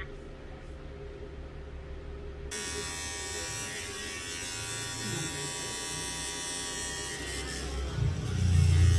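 Electric hair clipper buzzing steadily, becoming much louder and brighter about two and a half seconds in.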